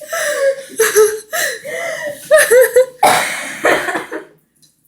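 Laughter in a run of short, high-pitched bursts, then a harsh, breathy burst about three seconds in that fades out.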